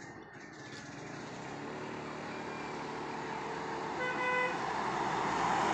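A road vehicle approaching, growing steadily louder, with a short horn toot about four seconds in.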